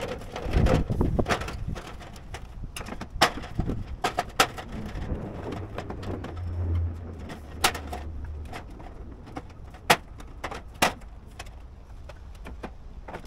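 Scattered clicks and knocks as a metal gutter is handled and worked back into place along the roof edge.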